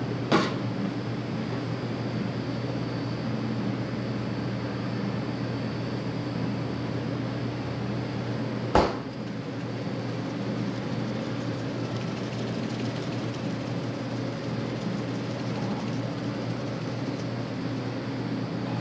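Steady mechanical hum of commercial kitchen ventilation fans, with two sharp knocks, one about half a second in and one about nine seconds in.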